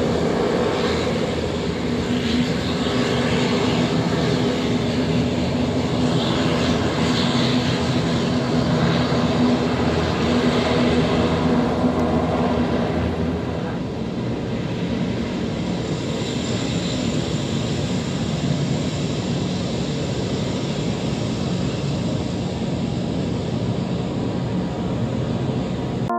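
ATR-72's twin turboprop engines running at taxi power, a steady propeller drone and engine hum that drops a little in level about halfway through as the aircraft moves away.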